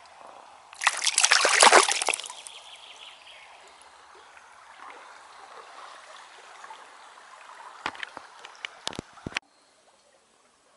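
A loud splash of water lasting about a second, beginning about a second in, as a caught chub goes back into a small river. After it comes softer sloshing and trickling water, then a few sharp clicks before the sound cuts off suddenly.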